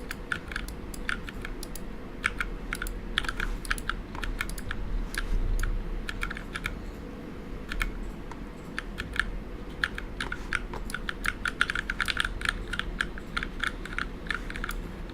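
Typing on a mechanical keyboard with Cherry MX "Ergo" Clear switches: irregular keystrokes that thin out briefly near the middle and come in a quick, dense run toward the end.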